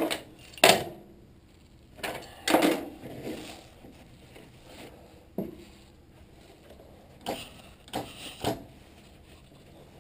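Hands working on the engine bay of a VW T3 Vanagon with the diesel engine off: about seven separate knocks and clatters of parts being handled, strongest near the start and around the middle, spread out with pauses between them.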